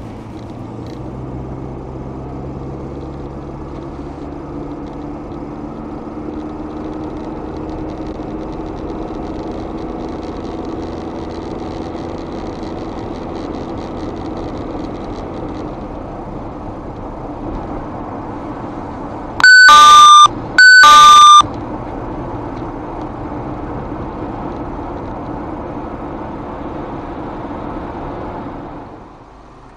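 Car engine and road noise heard from inside the cabin, steady with the engine note slowly shifting as the car drives. About two-thirds of the way in come two loud electronic beeps, each under a second long.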